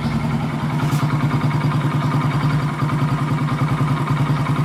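Warmed-up carbureted motorcycle engine idling steadily with an even beat, running with the headlight on high beam while its charging voltage is read for setting the air-fuel mixture.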